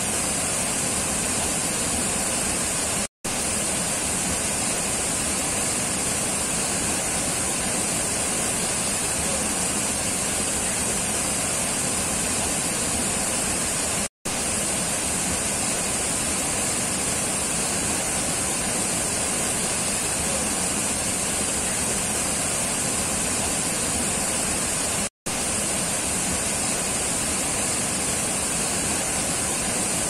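River rapids rushing over rocks: a steady, loud rush of white water tumbling down a low rocky ledge. Three very short dropouts to silence break it, about eleven seconds apart.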